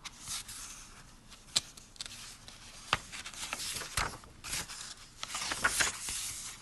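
Paper pages of a picture book rustling and sliding as they are handled and turned, with a few light taps and clicks.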